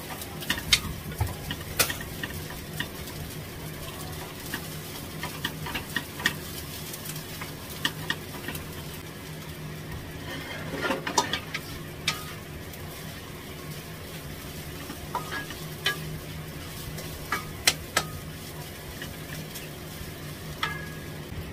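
Fried rice sizzling in a wok while a wooden spatula stirs and scrapes it, with irregular sharp taps of the spatula on the pan and a busier patch of scraping about halfway through. A steady low hum runs underneath.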